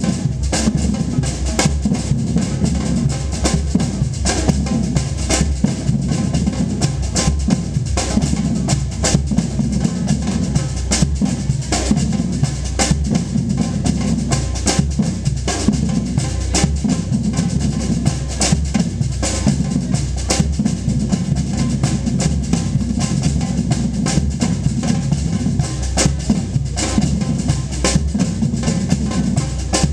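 Batucada percussion ensemble playing a steady samba rhythm, deep bass drums under dense snare and other drum strikes.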